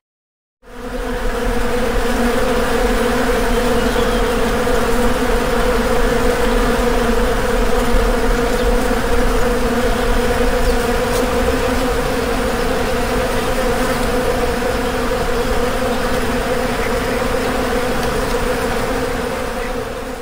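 Many honeybees buzzing together in a dense, steady drone. It fades in just under a second in and fades out at the very end.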